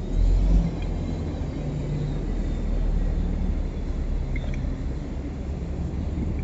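Low steady rumble of road traffic and buses around the station, with a brief swell of wind on the microphone in the first half second.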